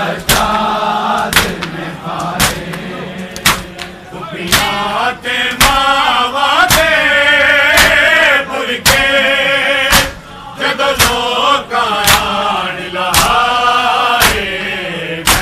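Shia mourners doing matam: a crowd of men striking their bare chests with their hands together about once a second, while men's voices chant a mourning lament over the beat. The chanting is loudest from about four seconds in to ten seconds.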